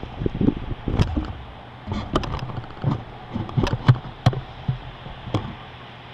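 Heavy vehicle engine running with a steady low hum, under irregular sharp knocks and clatters.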